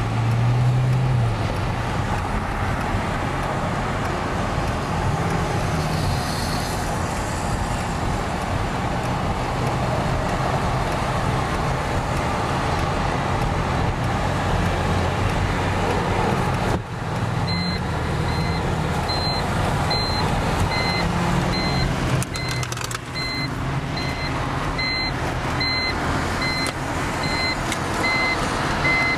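Steady road and engine noise heard inside a moving car at freeway speed, with a low rumble. A little past halfway, a short electronic beep starts repeating at an even pace and keeps going.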